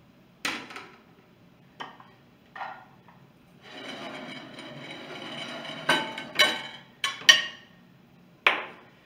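Dishware being handled: a serving platter slid across the table with a scraping rub from about three and a half seconds in, with sharp knocks and clacks of a spoon, a plastic bowl and the platter before and after it.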